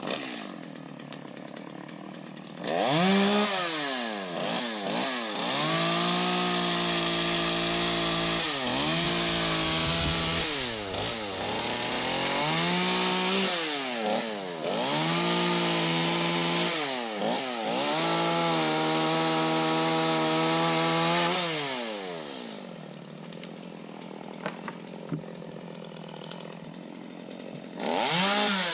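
Gas chainsaw revved to full throttle about three seconds in and held there through repeated cuts into wood, its pitch dipping and recovering several times as the throttle is eased and opened. It drops back to idle about three quarters of the way through, then revs up again near the end.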